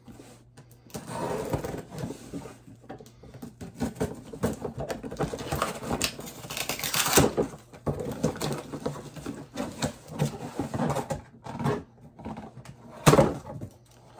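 Scissors snipping and scraping through packing tape on a cardboard box, with rustling and crinkling of cardboard and a paper bag as it is pulled open. A loud sharp knock about a second before the end.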